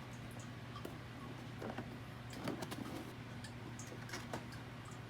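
Faint scattered clicks and light rustling of pistol packaging being opened and handled, over a steady low hum.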